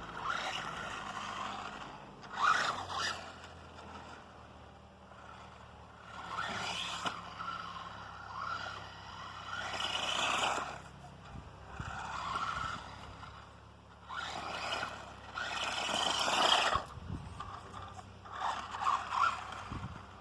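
Small 1/18-scale electric RC monster truck (Redcat Volcano 18) being driven hard in repeated bursts. Its motor whines up and its tyres scrape over the ground for a second or two at a time, about half a dozen times, with quieter gaps between.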